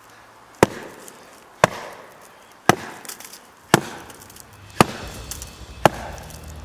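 A Tops Knives Bushcrafter Kukri 7.0 blade chopping into a dry, rotted log: six sharp strikes, about one a second.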